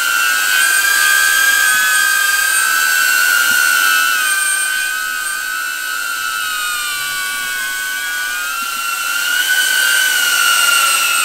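DJI Avata FPV drone's ducted propellers whining as it hovers and flies close by. The high-pitched whine is loud and steady, its pitch wavering slightly as the throttle changes.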